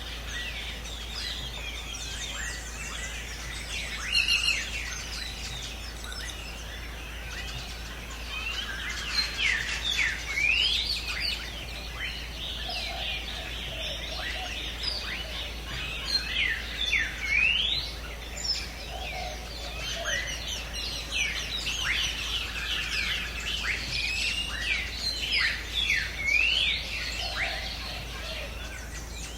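Several birds chirping and calling together, with many short, quick rising chirps. They are busiest from about a third of the way in onward.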